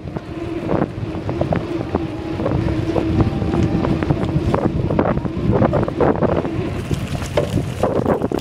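Wind buffeting the microphone of a phone carried on a moving bicycle, with tyre rumble and many short rattling knocks as the bike rolls over the path.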